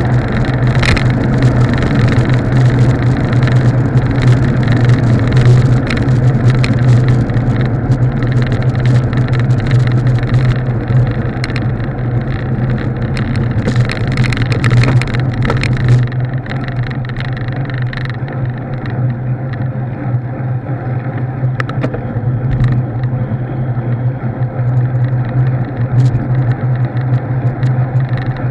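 Steady low drone of a moving vehicle with road and wind noise, as heard from a camera mounted on it. Frequent sharp rattles and ticks from the rough pavement fill the first half, then thin out as the sound turns smoother and a little quieter after about sixteen seconds.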